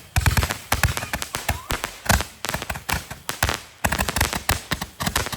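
Consumer fireworks going off in a rapid, dense crackle of small sharp pops, with a brief lull about four seconds in.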